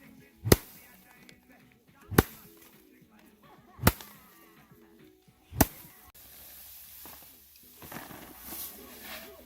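Four sharp cracking strikes, evenly spaced about a second and a half apart, over faint background music; after the last strike comes a softer rustling noise.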